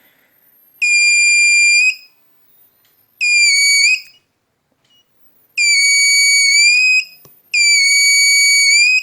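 Electronic buzzer driven through a transistor, sounding four high-pitched beeps of about a second each with short gaps between. The base current is being raised with a preset resistor, which changes the collector current through the buzzer and so its sound.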